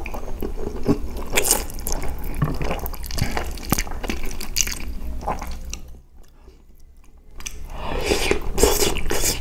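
A person slurping and chewing spaghetti bolognese up close: wet chewing and lip smacks with many small clicks. There is a short lull about six seconds in, then louder slurping and chewing near the end.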